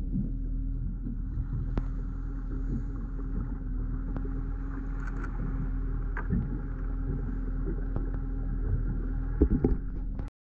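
A small boat's engine idling with a steady hum. There are a few light knocks, and a cluster of louder knocks near the end before the sound cuts off suddenly.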